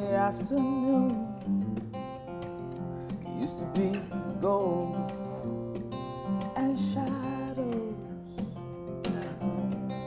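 Acoustic guitar strummed and picked in a steady accompaniment, with a woman's voice singing long, gliding notes over it.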